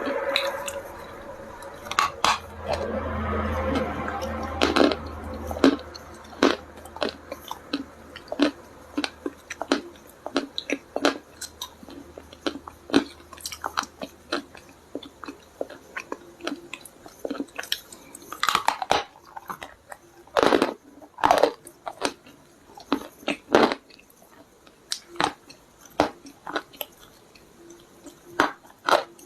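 A person biting and chewing dry clay stones: sharp, irregular crunches, some loud, with softer chewing between.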